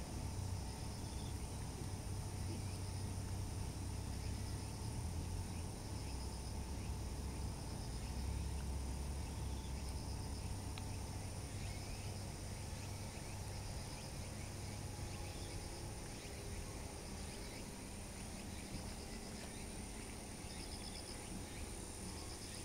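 Outdoor ambience: an insect calling in short pulsed chirps about every two seconds over a steady high-pitched tone and a low rumble.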